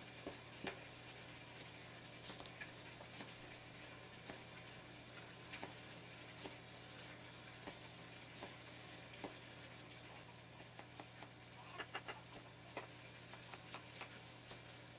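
Chef's knife cutting an onion on a wooden cutting board: faint, irregular taps of the blade on the board, with a quick run of taps about twelve seconds in. A steady low hum underneath.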